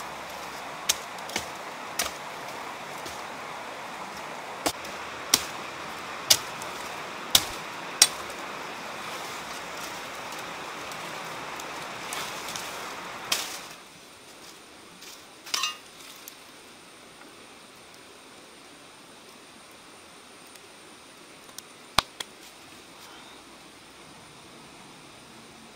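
Sharp snaps and cracks as branches are pulled and broken off a small tree, over a steady outdoor hiss. About two-thirds of the way through, the hiss stops; after that come a few quieter clicks as a cleaver cuts into an eggplant.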